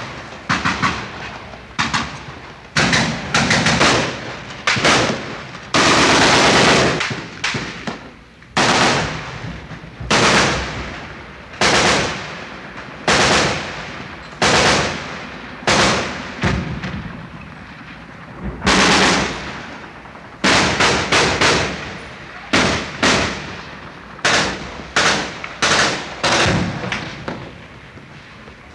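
Gunfire: single shots and short rapid bursts every second or two, each with a trailing echo, including a longer sustained burst about six seconds in.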